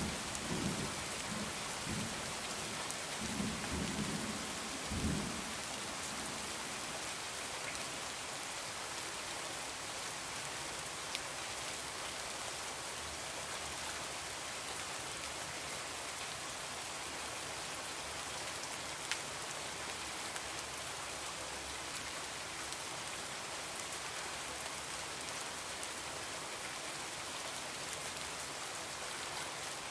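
Heavy rain pouring steadily, with low rumbles of thunder that die away about five seconds in. A couple of isolated sharp pops stand out later.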